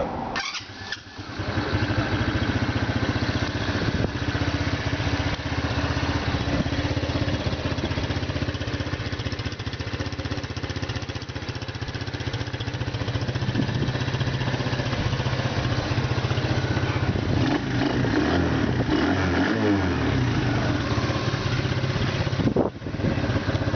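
Venom ATV-125F quad's 125 cc air-cooled single-cylinder carburetted engine running steadily, its pitch rising and falling for a few seconds near the end.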